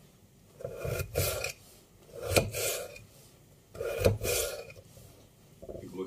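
Small kitchen knife slicing a peeled raw potato held in the hand, over and onto a dish. There are three short rasping cuts about a second and a half apart, each with a sharp click, and a fourth starting near the end.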